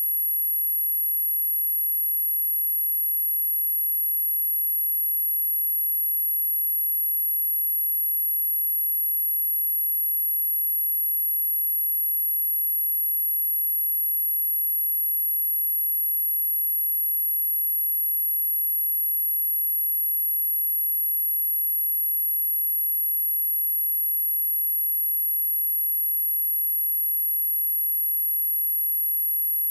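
A single steady 11436 Hz sine-wave test tone, a high-pitched whine held at an even level without a break.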